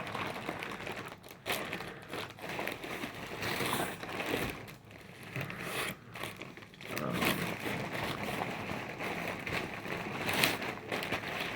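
Packaging crinkling and rustling as clothing is handled and unwrapped, in irregular crackly bursts with brief lulls.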